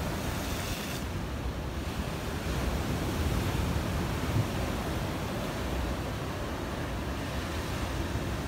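Ocean surf breaking and washing steadily, with wind rumbling on the microphone.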